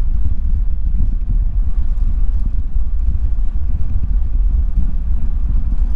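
Wind buffeting the microphone of a camera riding on a moving bicycle: a loud, unsteady low rumble.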